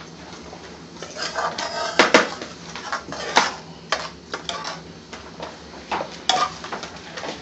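Metal spoon clinking against a ceramic serving dish: a few sharp clinks at about two, three and a half, four and six seconds in.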